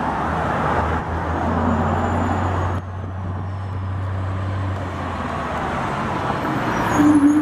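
Diesel engine of a Freightliner semi truck pulling double belly-dump gravel trailers, running with a steady low hum among passing traffic. A steady whine begins near the end.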